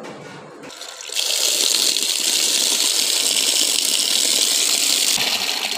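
Tap water pouring in a steady stream into a metal pot of sliced bitter gourd, filling it to soak the slices in salt and turmeric. The stream starts about a second in and is cut off shortly before the end.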